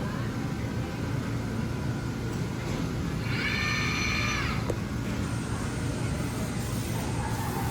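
Steady low rumble of background noise, with a single electronic beep lasting about a second a little past three seconds in.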